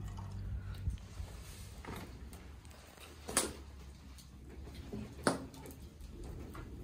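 Birch-wood fire crackling faintly in an open fire pit under a grill, with a low steady rumble and a few sharp pops, the two loudest about three and a half and five seconds in.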